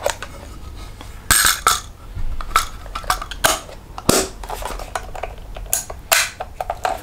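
Yashica Electro 35 GS metal-bodied rangefinder camera being handled: a string of sharp clicks and clacks as its hinged film back is snapped shut and the camera is worked in the hands. The loudest clacks come about a second in and about four seconds in.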